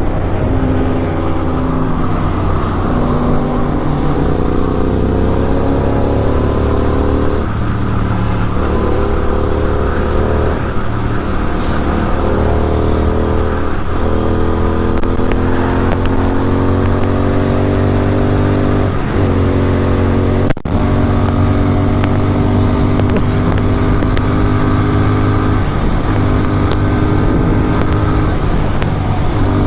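Sport motorcycle engine under way on the highway, its pitch climbing slowly through each gear and dropping back at several upshifts. A single sharp click sounds about two-thirds of the way through.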